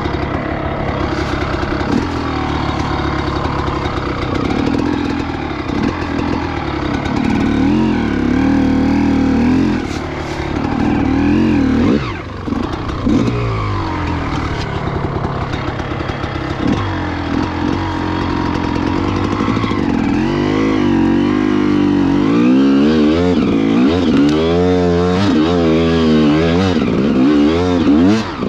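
Gas Gas EC 300 two-stroke single-cylinder engine under throttle, its pitch rising and falling as it is revved. Fast repeated throttle blips come in the last several seconds, and a few sharp knocks are heard along the way.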